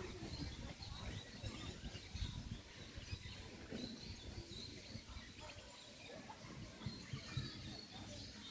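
Outdoor ambience: small birds chirping again and again in high, short calls over a low, uneven rumble.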